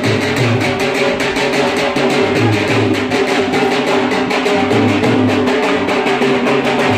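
Background music: a steady, even beat of quick strokes over sustained instrumental notes.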